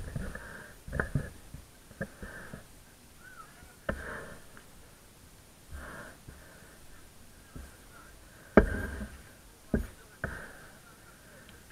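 Football match play: a string of irregular sharp thuds of the ball being kicked and struck, the loudest about three-quarters of the way through, with faint distant calls between them.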